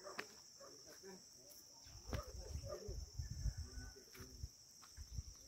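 A steady high-pitched insect chorus, with low thumps and rumbles from footsteps along a stone-edged paddy dike, loudest between about two and four seconds in.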